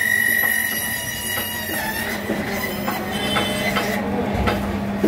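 Meat band saw cutting through a giant bagair catfish's head. A high steady whine sits over the motor's low hum and stops about two seconds in. A few knocks and clicks follow as the cut pieces are handled.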